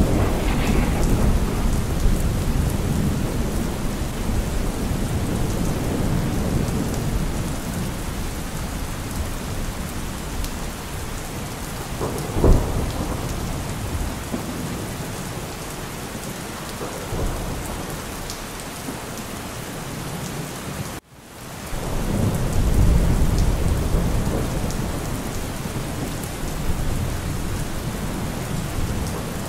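Thunderstorm: steady rain with rolling thunder rumbling low and swelling and fading, and a sharper thunder crack about twelve seconds in. About two-thirds of the way through the sound cuts out for an instant, and a fresh rumble swells up right after.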